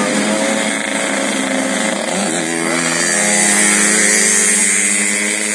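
Bus 'telolet basuri' multi-tone horn playing a melody of sustained, buzzy notes that shift pitch with short glides about two seconds in. A hiss swells over it in the second half.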